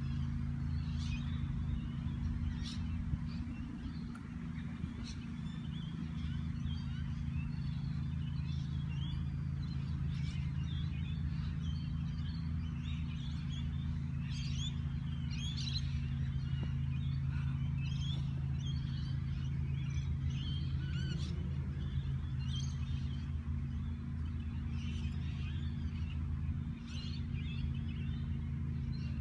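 Outdoor ambience of many short bird chirps and calls scattered over a steady low hum.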